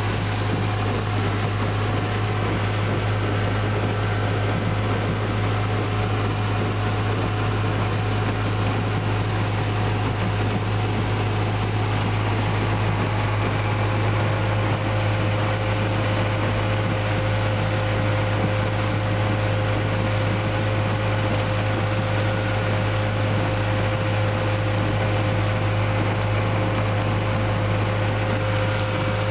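Johnson outboard motor running steadily with the boat under way: a constant low hum at an unchanging pitch over an even rush of noise.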